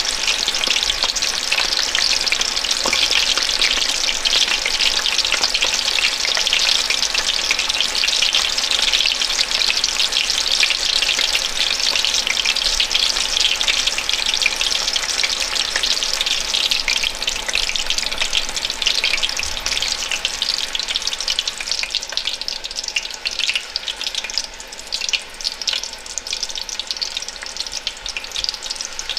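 Chicken frying in hot oil in a pan, a dense steady sizzle with many fine crackles, easing a little and turning more uneven in the last several seconds.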